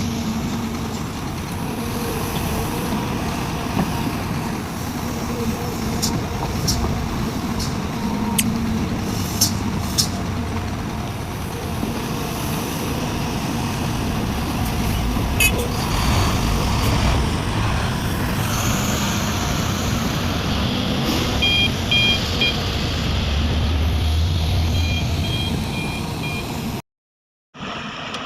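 Heavy diesel engine of a Sumitomo SH350 excavator running under load while loading soil into a dump truck, with scattered sharp knocks of rock and metal. Near the end, a reversing alarm sounds in two short runs of beeps.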